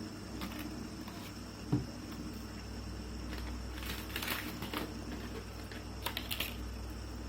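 Fidget spinner spinning on its bearing with a steady whir, with scattered light clicks and a soft thump about two seconds in.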